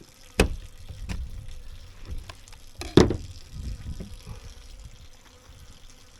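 Kitchen handling noise as slices of butter are laid on fish in a baking dish: two sharp knocks, one just after the start and one about three seconds in, with a few softer clicks and a low rumble between.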